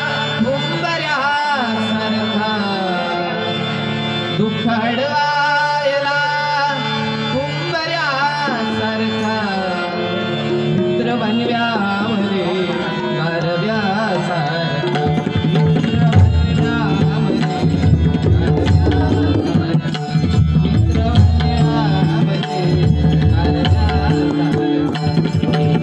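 A devotional bhajan: a man sings long, ornamented phrases over a steady accompaniment, and about halfway through fast hand-drum playing with deep bass strokes takes over and grows louder.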